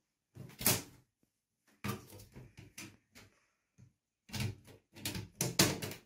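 Clear plastic vent cover being pushed and worked into a round hole in a window pane: the plastic knocks and scrapes against the glass in three clusters of clatter. The loudest knocks come about half a second in and near the end.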